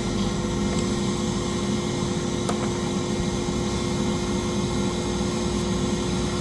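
Henry canister vacuum cleaner running steadily: an even motor noise with one constant hum.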